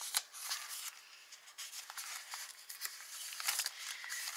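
Paper pages of a handmade junk journal being handled, giving an irregular rustle with scattered light ticks and clicks.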